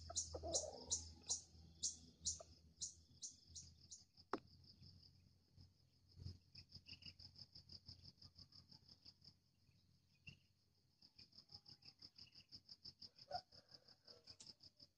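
Insects calling in a tropical forest: loud, high chirps repeated about three times a second for the first four seconds, then a fainter, fast, steady high trill. A brief lower call sounds near the start and again near the end.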